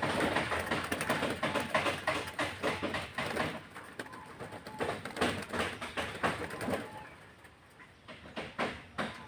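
Black-collared dove calling, a run of short irregular coos and sounds that ease off for a while past the middle and pick up again near the end.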